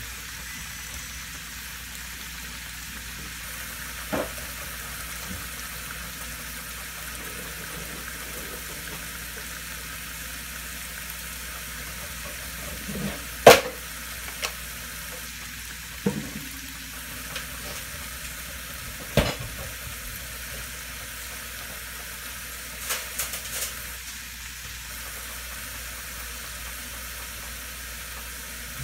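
Bean sprouts and vegetables sizzling steadily in a frying pan, with a few sharp knocks and clinks of kitchen things, the loudest about halfway through.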